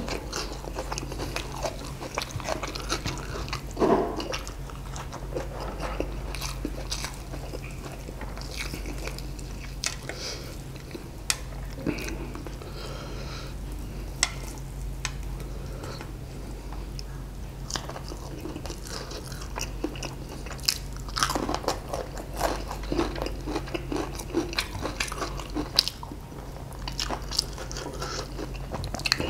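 Close-miked eating of crispy fried chicken and rice by hand: crunching bites, chewing and wet mouth sounds as irregular short clicks and crackles, over a faint steady low hum.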